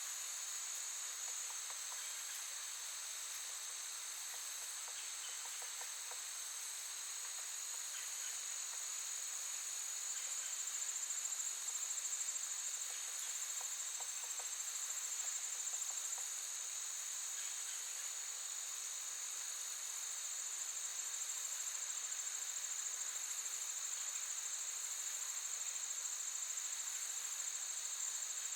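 Crickets chirping in a continuous, high-pitched trill that holds steady throughout.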